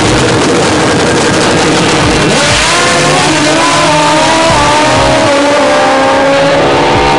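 Fuel-injected Hayabusa-powered Pro Mod drag bike launching at full throttle and running away down the strip, very loud. From about two seconds in, the engine note climbs through the gears, with short drops at the shifts.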